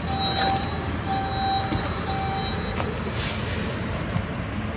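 Fire station alarm signal beeping in a steady on-off pattern, about one half-second beep a second, over the low steady running of fire trucks' diesel engines. The beeping stops about three seconds in, and a short hiss of air, typical of a truck's air brakes, follows.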